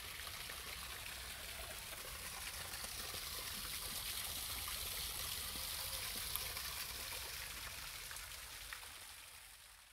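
Steady hiss of running water, swelling slightly around the middle and fading out near the end.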